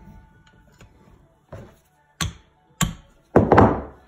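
Metal brake caliper parts handled by hand: two sharp metallic clicks, then a louder scraping clatter near the end as the pads and their fittings are worked into place. Faint background music runs underneath.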